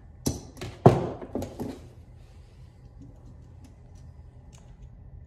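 A quick run of hard knocks and clatter from metal carburetor parts and tools on a workbench, lasting about a second and a half, with the loudest knock about a second in.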